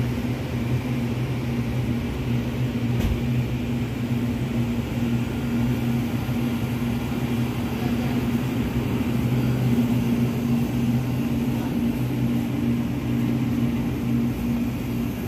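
Steady low electrical hum of a grocery store's refrigerated display cases and air conditioning, two even droning tones that do not change.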